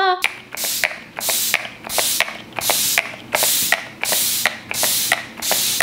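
Fine-mist pump spray bottle of makeup setting spray being pumped at the face over and over: a quick hiss of mist about twice a second, each starting with a click of the pump, around eleven sprays in all.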